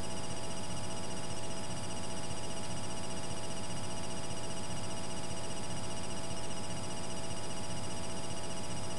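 Steady hiss with a constant electrical buzz made of several unchanging tones, no speech.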